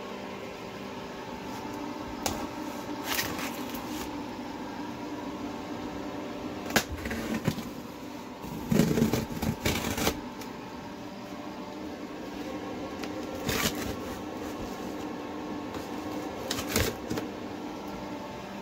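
A steady machine hum with several fixed tones, broken by scattered knocks and rustles of handling. The loudest of these is a cluster of knocks about nine to ten seconds in.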